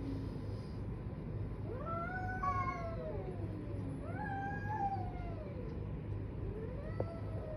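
Domestic cats in a standoff yowling at each other: three long, wavering caterwauls, each rising and then falling in pitch, the threat calls of a cat fight.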